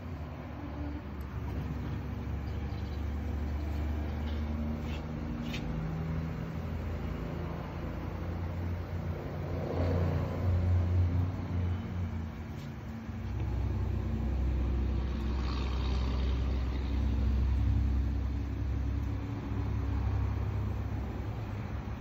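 Hobart LXeR undercounter commercial dishwasher running a cycle: a steady low motor hum that swells briefly, drops away a little past halfway, then comes back up.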